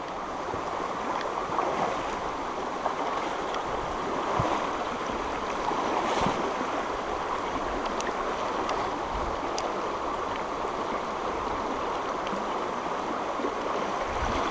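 Shallow, rocky mountain stream running over stones: a steady rushing ripple of water.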